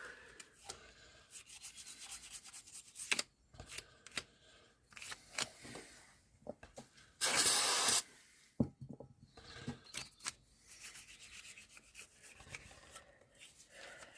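A brush scrubbing gummed-up Kärcher pressure washer pump parts in short, scratchy strokes. About seven seconds in comes one loud hiss, under a second long, from a squirt of cleaning spray.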